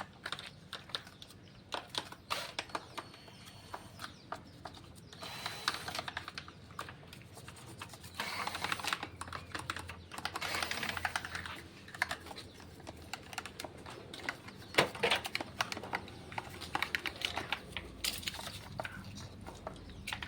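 Irregular light clicks and knocks of hands and tools working on a washing machine during tub cleaning, with a few short stretches of scraping.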